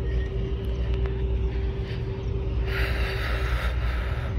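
Steady low outdoor rumble with a faint constant hum, and a brief hiss about three seconds in.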